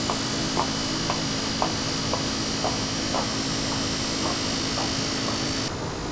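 Cotton candy machine running: a steady motor hum and high whine from the spinning head, with light regular ticks about twice a second. The high whine cuts off suddenly near the end.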